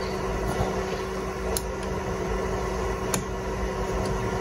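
A steady low hum, with two faint clicks about a second and a half apart as fingers work at the plug of the old door puddle light.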